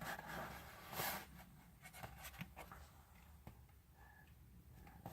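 Faint scratching and a few light clicks of small handling noises close to the microphone, louder in the first second or so.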